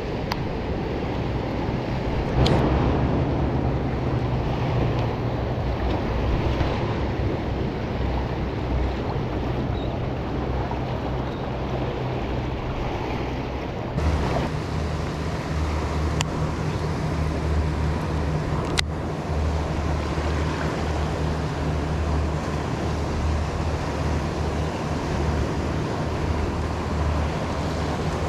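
Waves washing against jetty rocks, with wind buffeting the microphone, and a few sharp clicks scattered through.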